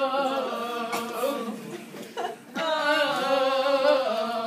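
Voices singing two long held notes without clear words, the first fading about two seconds in and the second starting about half a second later.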